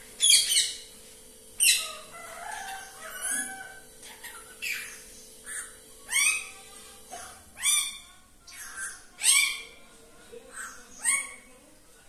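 Caged green parakeet giving short, shrill calls, about ten of them at uneven intervals.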